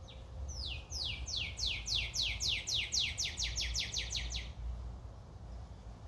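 Northern cardinal singing: a run of about twenty quick whistled notes, each sliding down in pitch, that speed up over some four seconds and then stop.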